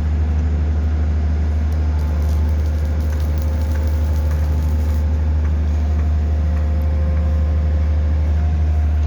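Hydraulic static pile driver's engine and hydraulic power unit running at a steady pace: a constant low drone with a faint steady whine above it.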